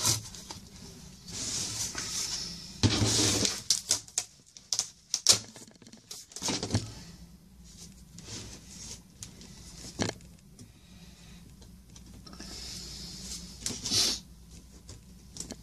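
Cardboard mailer and a plastic-bagged comic being handled: uneven rustling and scraping of cardboard and plastic, with scattered knocks and a sharp tap about ten seconds in.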